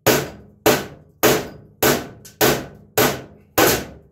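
Hammer blows on a long steel chisel set against a cast spindle hub in a steel mower deck, knocking the stuck hub out from the top. Seven sharp, evenly spaced strikes, a little under two a second, each ringing briefly before the next.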